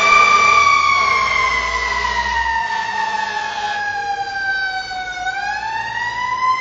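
Emergency vehicle siren wailing: one tone falls slowly in pitch for about five seconds, then rises again near the end.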